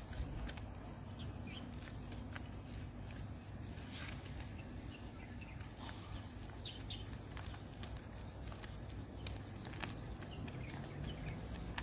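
Outdoor river ambience: a steady low rumble with scattered light clicks and faint bird chirps.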